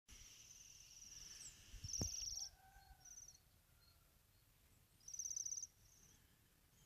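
Small songbirds singing short, high, rapidly pulsed trills, several times with pauses between. A low thump about two seconds in.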